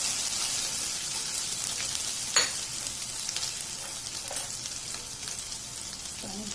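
Boiled potato pieces sizzling in hot mustard oil with cumin in a kadai, the sizzle slowly dying down, with one sharp clink a little over two seconds in.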